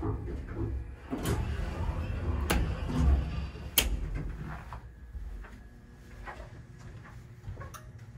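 Small metal phone-cabinet door in an elevator's operating panel being handled and pulled open: a few sharp clicks and rattles, the sharpest nearly four seconds in, over a low rumble in the first few seconds.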